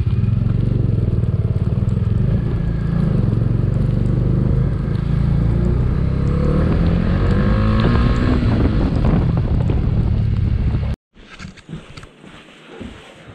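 Motorcycle engine running on the move with wind rush, the engine note rising and then falling again about two-thirds of the way through. It cuts off abruptly near the end, leaving a few faint knocks.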